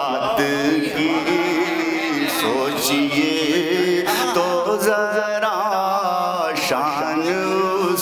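A naat, an Urdu devotional poem in praise of the Prophet, sung solo in long, wavering, ornamented notes over a steady low drone.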